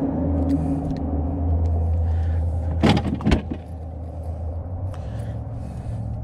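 A steady low mechanical hum, with two sharp knocks close together about three seconds in.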